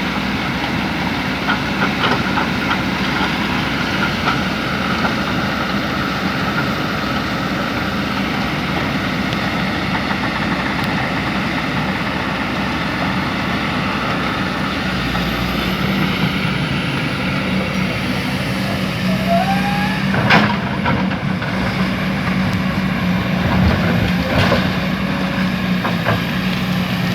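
Heavy diesel earthmoving machinery, an excavator working with a dump truck, running steadily, its low engine hum growing stronger about halfway through. A couple of sharp knocks stand out, about twenty and twenty-four seconds in.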